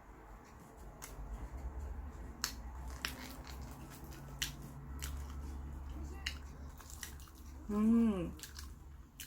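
Close-up eating sounds of a person chewing a chocolate snack: scattered soft clicks and mouth noises, with a short hummed 'mm' about eight seconds in.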